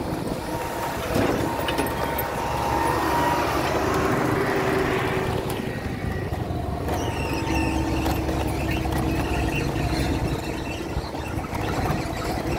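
Steady engine and road noise of a vehicle travelling along a rough unpaved dirt road, with a tipper truck close alongside at the start.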